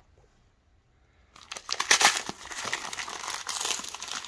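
Brown kraft packing paper crinkling and tearing as it is pulled off a wrapped bayonet, starting about a second and a half in.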